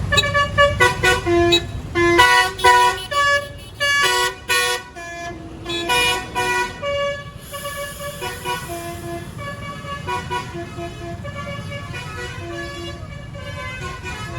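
Bus 'basuri' musical air horn playing a quick melody of short held notes at changing pitches, loud for the first seven seconds or so and softer after. A low engine rumble sits underneath at the start.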